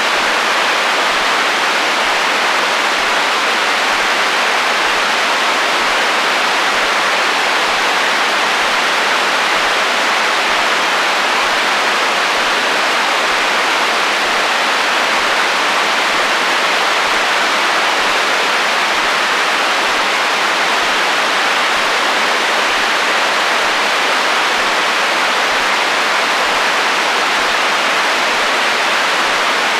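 Radio static: the steady, even hiss of FM radio interference, with little bass and no tones or breaks.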